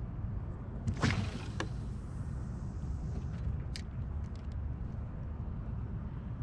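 A cast with a spinning rod and reel: a sharp swish about a second in as the lure flies and line pays off the spool, a single click near the middle as the bail snaps shut, then light ticks of the reel being cranked. Steady wind rumble on the microphone underneath.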